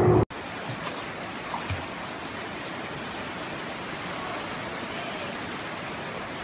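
Steady, even rushing of floodwater, heard as a featureless hiss.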